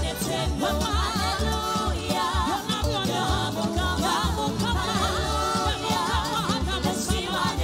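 Live gospel music: a lead singer and backing vocalists singing with a band over a steady, pulsing bass beat.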